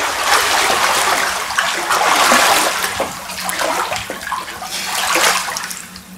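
Pool water sloshing and splashing around a swimmer wading through it, a steady wash that swells twice.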